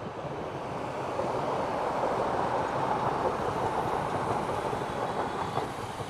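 An older Merseyrail electric train passing on the line, its running noise building over the first second or so and then holding steady.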